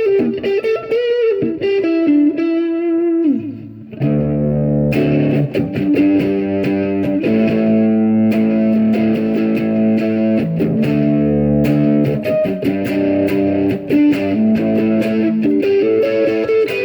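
Electric guitar, a Xavier PRO830 Tele-style on its stock neck humbucker, through a Positive Grid Spark amp with a little overdrive. It opens with single-note lines with bends, then about four seconds in moves to sustained, distorted chords.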